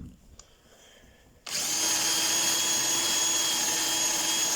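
Electric drill starting about a second and a half in and running steadily at constant speed, drilling out a stuck screw in the bottom of a motorcycle front fork leg.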